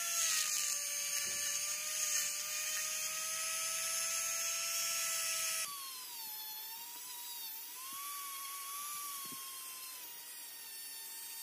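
Small high-speed handheld rotary tool running with a steady whine as its bit grinds rust off a steel revolver frame. About six seconds in it drops in level and the whine jumps higher and wavers, with a thin pin-like bit now working in a hole in the frame.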